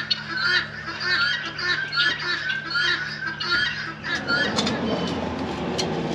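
Farm poultry calling over and over, short squawking calls about two a second. From about four seconds in they fade under a rushing noise that builds up.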